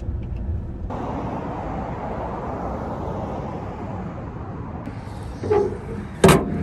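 Outdoor street ambience with a steady traffic hum. Near the end, the pull-down metal drop chute of a blue USPS collection mailbox gives a clunk and then a loud metal clank as it is opened.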